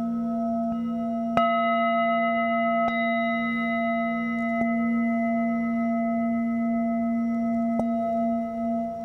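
Tibetan singing bowls struck with a padded mallet, about five strikes with the loudest about a second and a half in. Their tones ring on and overlap, wavering slowly as they beat.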